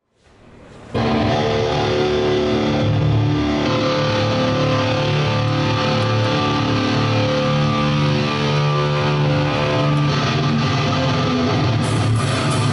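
Metal band playing: sustained distorted electric guitar chords start about a second in. The drum kit and cymbals come in near the end.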